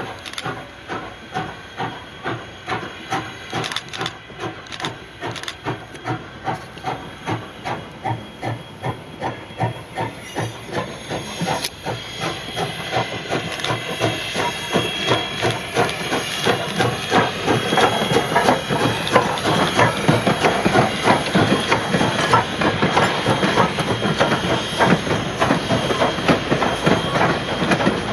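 Canadian National No. 89, a 2-6-0 steam locomotive, working hard with its exhaust chuffing about twice a second over a steady steam hiss. It grows louder from about halfway as it passes, and near the end its passenger cars roll by with their wheels clicking over the rail joints.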